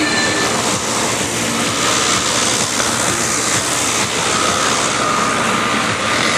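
Piston engine of a replica SE5a biplane flying overhead, a steady drone heard against a loud even noise.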